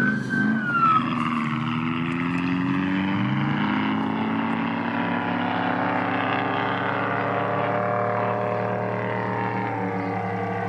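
Race vehicle engine running at fairly steady revs, its pitch drifting slowly. In the first second a siren-like whoop falls away.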